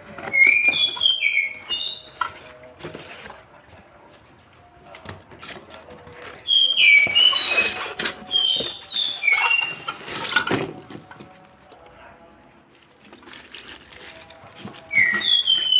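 A songbird singing in three bursts of short, quick chirps and whistled notes, with scattered clicks and knocks in between.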